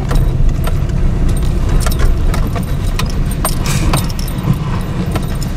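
Inside a moving car: the engine and road noise make a steady low rumble, with irregular sharp clicks and small rattles over it.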